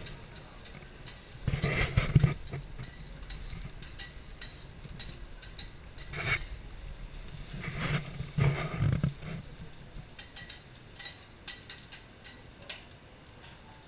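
Metal spatulas clicking and scraping on a teppanyaki griddle as fried rice cooks, with two loud low bursts, one about two seconds in and a longer one around eight to nine seconds in.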